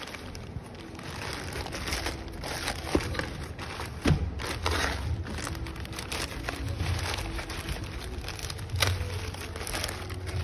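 Plastic courier mailer bag being handled and torn open by hand: crinkling and rustling of the plastic with several sharp snaps.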